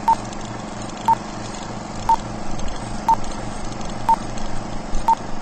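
Film-leader countdown sound effect: a short, high beep once a second, six times, over a steady crackling hiss.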